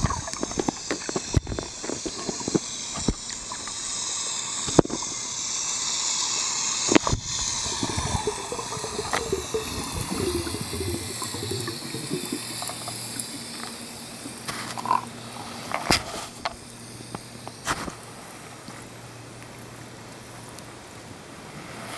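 Underwater recording: a steady muffled water hiss with scattered sharp clicks and knocks, some from handling of the camera. A low steady hum runs through the second half.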